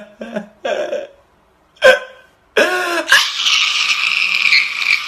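A person's wordless vocal reactions: short voiced sounds, a sudden loud cry, then a long, harsh, breathy sound held for about two and a half seconds.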